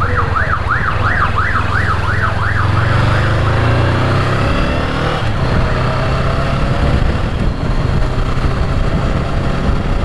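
Ambulance siren in a fast yelp, rising and falling about three times a second, heard over the steady hum and wind noise of a Honda CB500X's parallel-twin engine. The siren fades out about three and a half seconds in, leaving the motorcycle's engine and road noise.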